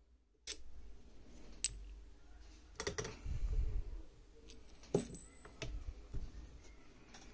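Sharp metal clicks and knocks from parts of a small cast-metal bead lathe being handled and adjusted by hand, with the lathe switched off. There are about five distinct clicks, and a short low rumble about three seconds in.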